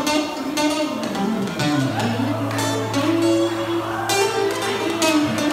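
Acoustic guitar played solo and live, strummed and picked, with a low bass note held for about three seconds from about two seconds in.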